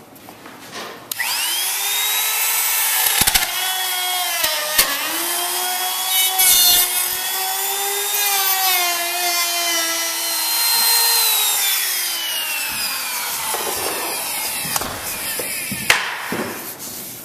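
Compact router switched on about a second in, whining up to speed and cutting into the wood floor, its pitch wavering as it cuts. It is switched off and winds down a few seconds before the end, followed by a sharp click.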